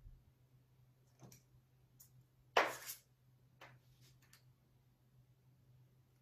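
Metal ice cream scoop clicking and scraping as cake batter is portioned into cupcake liners: a few soft clicks and one louder scrape about two and a half seconds in.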